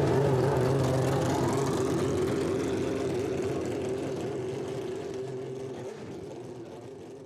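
Superleague Formula Panoz DP09B's 4.2-litre V12 running at a steady, low engine note that grows steadily fainter.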